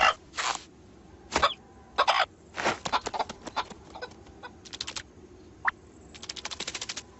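Cartoon character noises: short clucking, cough-like vocal bursts one after another, a brief rising squeak, then a quick run of clicks near the end.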